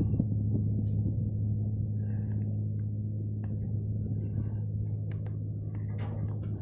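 A fishing boat's engine running with a steady, even low hum.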